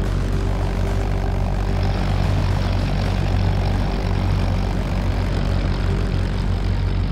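Propeller fighter's piston engine running steadily in level flight: a Hawker Typhoon's engine as it is rendered in the animation.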